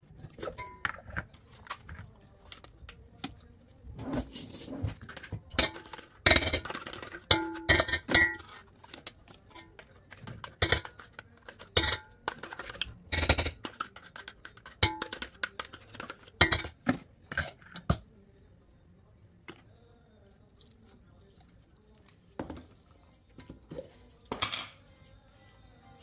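Metal spoon, glass lid and stainless steel mixing bowl clinking and knocking as cream cheese is scooped from a plastic tub into the bowl. The clanks are irregular, thick for the first eighteen seconds and only a few after.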